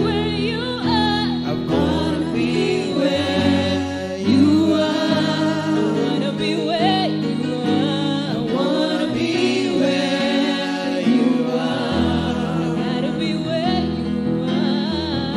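Gospel worship song: a man and a woman singing together with vibrato over sustained electronic keyboard chords and low bass notes that change every second or two.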